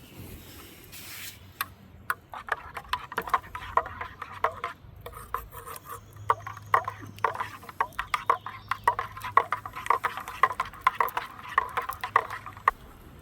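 Metal spoon stirring in a metal canteen cup: a long run of quick, irregular clinks against the cup wall, several a second.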